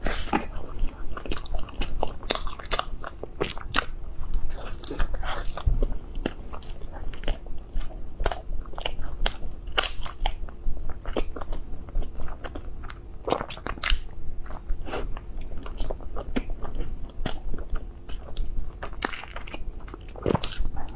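Close-miked biting and chewing of soft cream-filled ice cream bread, with many short mouth clicks and smacks.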